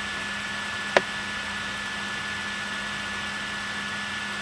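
Computer fan running with a steady hiss and hum, and one short click about a second in.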